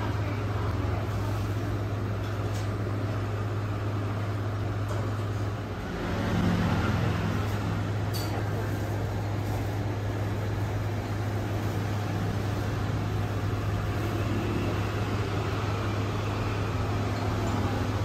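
Steady background noise with a constant low hum. A brief louder swell comes about six seconds in.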